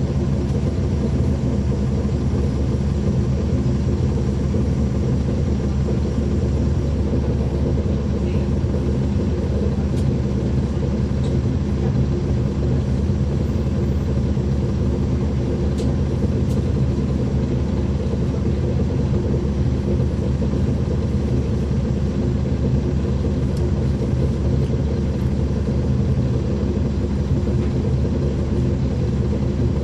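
Caterpillar C13 ACERT diesel engine of a 2009 NABI 416.15 (40-SFW) transit bus, heard from inside the bus, running at a steady, unchanging pitch: an even low drone.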